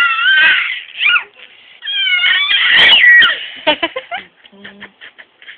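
A baby fussing with high-pitched, wavering cries in two stretches of about a second each, the second one the loudest. A few short clicks follow near the end.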